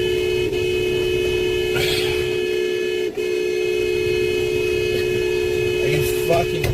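Car horn stuck on, sounding one steady, unbroken tone that won't stop, with only a couple of momentary dips.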